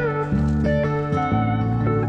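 Background music: guitar-led instrumental with sliding steel-guitar notes over a steady bass.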